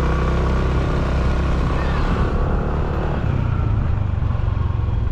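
A road vehicle's engine running steadily on the move, with its note shifting lower about three seconds in.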